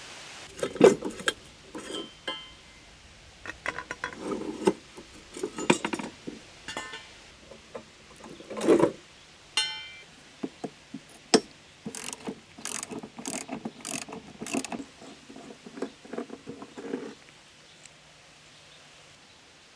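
Socket ratchet clicking in quick runs as it works nuts and bolts on mower deck linkage, mixed with sharp metal clinks of spanners, sockets and small parts on a wooden bench. The clicking dies away near the end.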